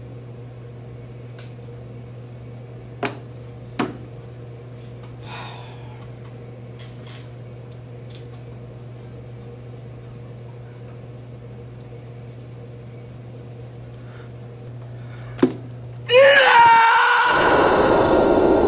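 Quiet classroom room tone with a steady low hum and a few sharp clicks. About sixteen seconds in, a sudden loud pitched sound drops in pitch and runs into a loud steady rushing noise.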